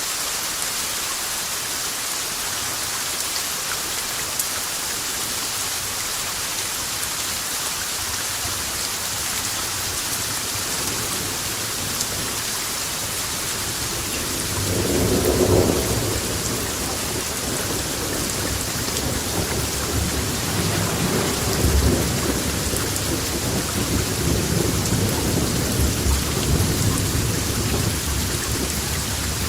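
Steady rain hissing, with thunder rolling in about halfway through: a low rumble that swells, peaks briefly, then keeps rumbling in uneven surges.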